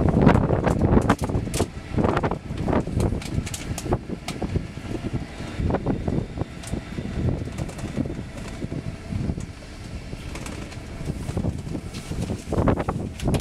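Wind rushing over the open top deck of a moving sightseeing bus and buffeting the microphone, with the bus running underneath. The buffeting is strongest in the first second.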